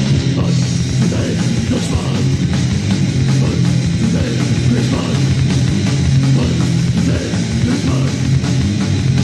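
Heavy metal demo recording: distorted electric guitars, bass and a drum kit playing together.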